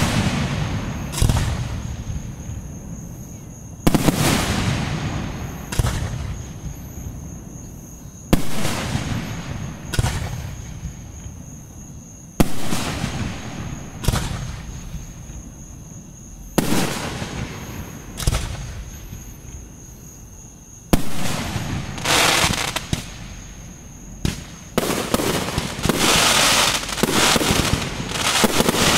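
Aerial firework shells bursting: sharp booms every couple of seconds, each fading away over a second or two, running into a dense crackling near the end.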